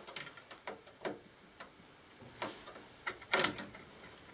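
Small plastic clicks and taps of a DDR4 RAM stick being lined up and pressed into a tight motherboard memory slot, with louder knocks about two and a half and three and a half seconds in.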